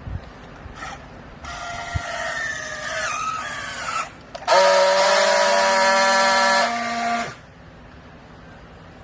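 Hydraulic baler machine working under load: a wavering whine, then a louder steady whine for about three seconds that cuts off abruptly.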